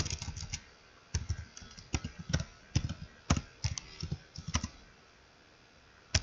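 Computer keyboard typing: quick, irregular runs of keystrokes that stop about four and a half seconds in.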